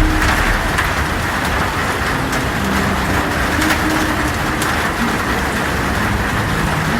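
Heavy rain drumming on a tin roof: a steady hiss with scattered sharp drop ticks on the metal and a low rumble underneath.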